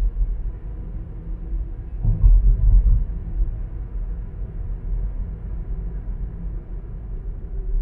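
Low, steady rumble of a car driving on a sealed road, tyre and engine noise, swelling briefly about two seconds in.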